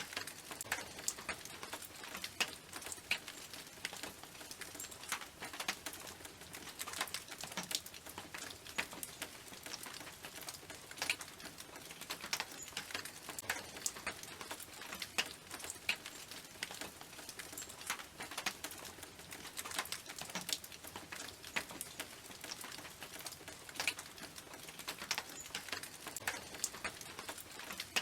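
Raindrops pattering on a tin roof: many separate sharp ticks of uneven loudness over a steady hiss.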